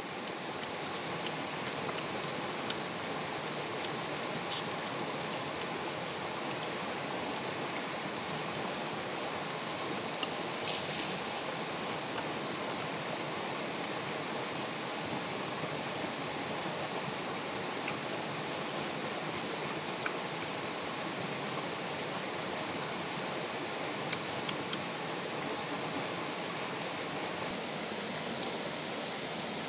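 Small stream rushing steadily over rocks, with a few faint clicks and, twice, a brief run of rapid high ticking.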